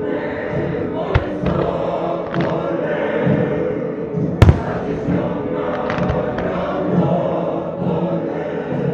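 Fireworks bursting over choral music: one loud bang about halfway, several softer pops and cracks, with a choir singing held notes throughout.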